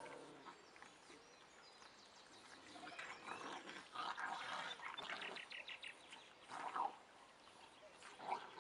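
Puppies play-fighting, giving short yips and whines from about three seconds in, with two louder cries near the end.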